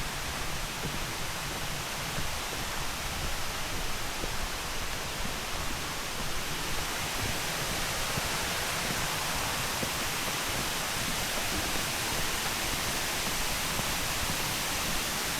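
Steady rush of a waterfall: Indian Branch Falls plunging about 45 feet, an even roar with no breaks that grows slightly louder toward the end.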